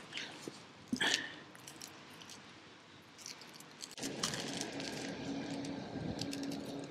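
Quiet handling noises of hand-brushing liquid roof sealant over a fabric patch, with one sharp metallic clink about a second in. About four seconds in, the sound cuts to a louder steady background hum with small rustles and clicks as the patch is pressed down.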